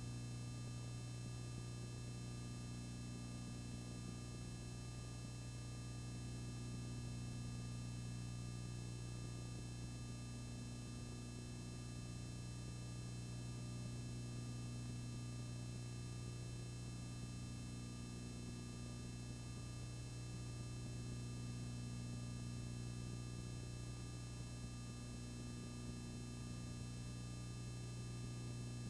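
Steady low electrical hum with a set of faint steady tones above it, unchanging; no other sound.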